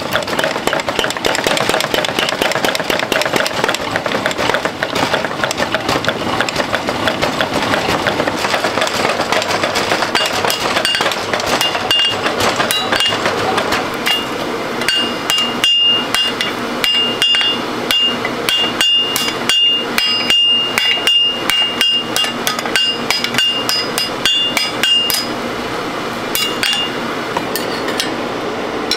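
Blacksmith's mechanical power hammer pounding a red-hot steel pitchfork tine in a rapid, steady run of blows. This gives way to spaced hand-hammer strikes on hot steel over an anvil, each blow followed by a high ring.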